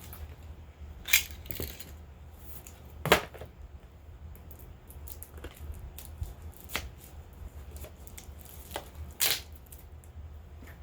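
Hands handling cosmetic packaging and products: scattered taps, clicks and rustles, with louder sharp clacks about a second in, about three seconds in and near the end. A low steady hum runs underneath.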